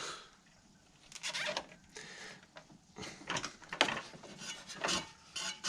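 Short, irregular rubbing and scraping as the cooling fan is worked by hand against its fan shroud, the blades still catching on the shroud.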